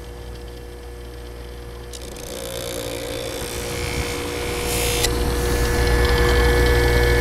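A 6-inch bench buffer's motor runs steadily with a hum. A knife edge pressed against its hard felt wheel makes a hissing rub from about two seconds in that stops sharply about five seconds in, when the blade is lifted off.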